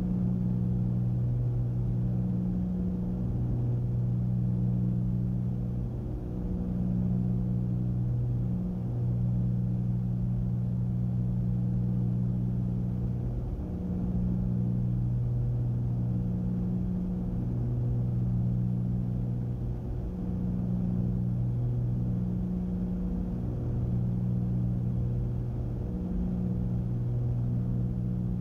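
Cessna 310's twin piston engines and propellers droning steadily in the cabin on final approach. The drone swells and fades in a slow regular beat, as the two engines turn at slightly different speeds.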